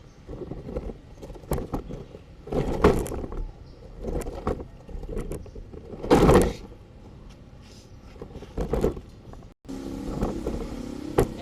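Plastic toy vehicles being handled and pushed about, in several short bursts of rattling and scraping, the loudest about six seconds in. A low steady hum takes over near the end.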